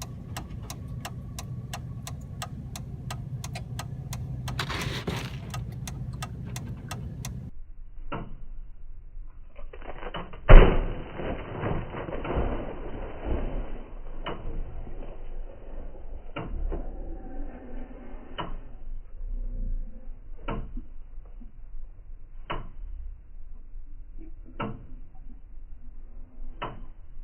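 Car sounds: a steady low hum with rapid ticking for the first seven seconds or so, then one loud door-like thud about ten seconds in, followed by soft knocks about every two seconds.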